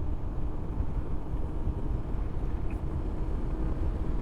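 Honda CB500X parallel-twin engine running at a steady cruise with road and wind rumble, heard from the rider's helmet microphone.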